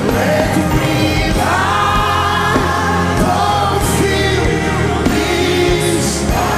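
Live gospel worship music: a congregation singing together over a band, with steady bass and cymbal crashes.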